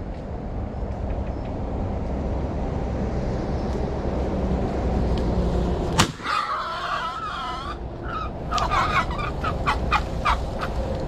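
A single 12-gauge shot from a Baikal shotgun about six seconds in, over a steady rumble of motorway traffic. Right after it, a wild boar squeals in wavering cries, then in a run of shorter squeals about two seconds later: the animal has been hit.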